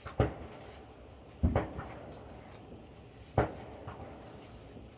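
Three sharp bangs, a second or two apart, each dying away quickly: fireworks going off.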